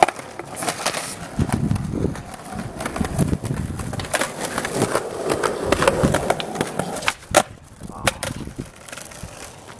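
Skateboard wheels rolling on a concrete sidewalk, a rumble that grows as the rider approaches. About seven seconds in, a few sharp clacks follow as the board is kicked into a trick and clatters onto the concrete.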